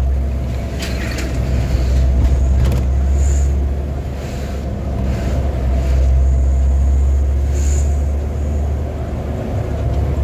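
Bus engine and road noise heard from inside the cabin: a steady low drone, with a few brief knocks or rattles.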